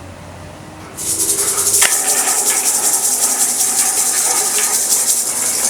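A rattle shaken rapidly and steadily, a loud high hiss that starts about a second in.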